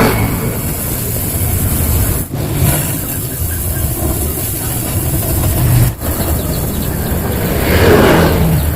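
Yamaha RX-King two-stroke single-cylinder motorcycle engine running through its exhaust, with the revs rising and falling back a few times.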